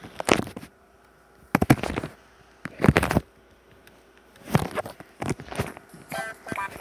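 Five short bursts of crackling knocks and clatter, spaced about a second apart, then music begins near the end.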